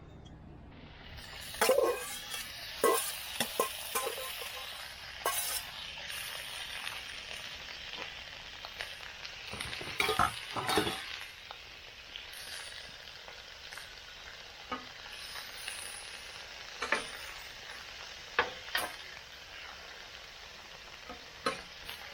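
Diced ham steak sizzling as it goes onto the hot, oiled Blackstone flat-top griddle beside frying shredded potatoes; the sizzle swells about a second in and then holds steady. Short clicks and scrapes of stirring cut through it now and then.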